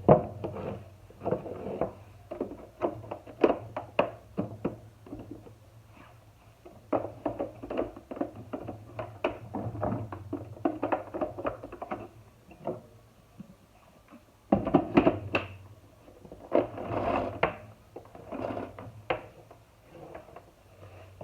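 Irregular knocks, clicks and clatter of plastic vacuum-cleaner parts being handled and fitted together over a faint low hum, with a short lull a little past the middle.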